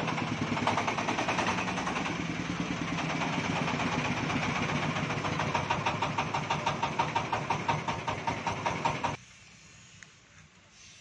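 Diesel engine running with a steady, rhythmic pulsing beat that grows stronger in the second half, then cuts off suddenly about nine seconds in.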